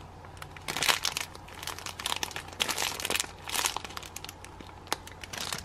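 Clear plastic bag around a squishy bun crinkling as it is handled, in irregular crackles.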